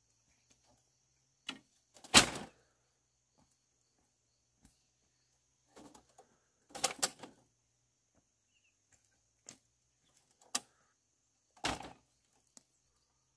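Irregular sharp knocks and clacks of bamboo being worked by hand, about eight spread unevenly, the loudest about two seconds in and a quick double knock near the middle. A steady high drone of insects runs underneath.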